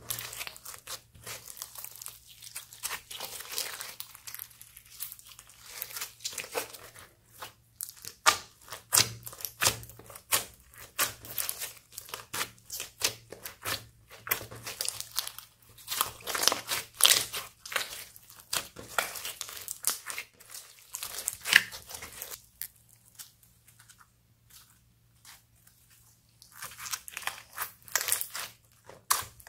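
A large lump of slime mixed with foam beads being kneaded, squeezed and pulled apart by hand, giving a busy run of sticky crackles, pops and squelches. It goes quieter for a few seconds about two thirds of the way through.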